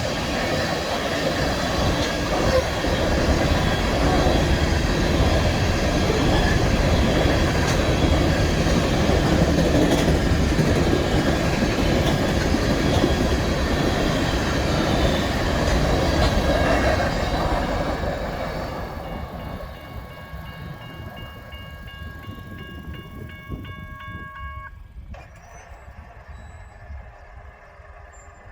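BNSF train passing close by, its loud rumble of wheels on rail fading away after about eighteen seconds. A train horn then sounds one held chord of several notes, fainter, and cuts off suddenly.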